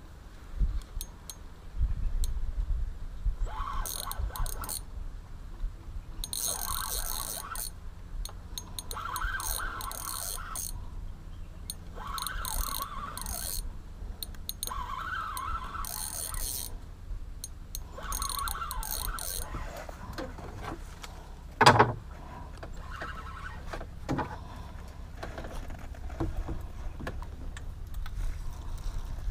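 Spinning reel cranked in about six short bursts of winding, a second or so each, as a hooked giant river prawn is reeled in toward the boat. A single sharp knock comes near the end.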